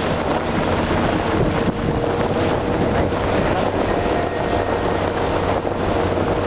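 Steady rushing noise of a sledge sliding fast over packed snow, with wind buffeting the microphone.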